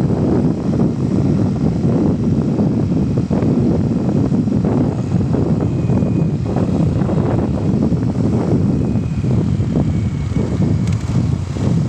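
Steady low rumble of a moving motor vehicle, with wind buffeting the microphone.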